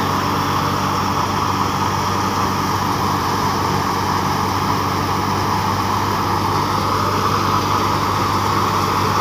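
Tractor-driven wheat thresher running steadily: a low, even engine hum under the steady rushing whirr of the threshing drum and blower.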